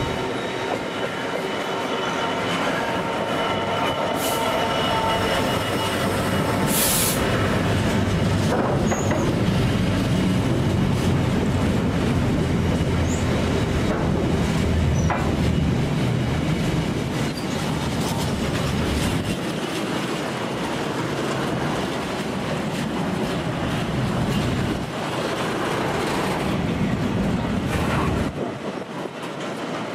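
A Class 66 diesel-electric freight locomotive, with an EMD two-stroke V12 engine, runs past with its engine sounding through the first several seconds. A long rake of container wagons then rolls by with a steady rumble of wheels on rail.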